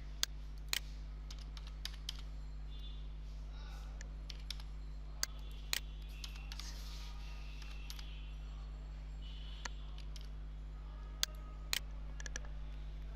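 Scattered sharp clicks of computer keys, several coming in pairs about half a second apart, over a steady low electrical hum.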